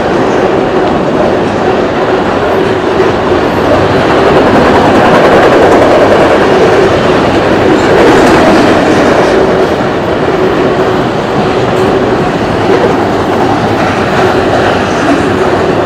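Autorack freight cars passing at speed: a loud, steady rumble and rattle of steel wheels on the rails.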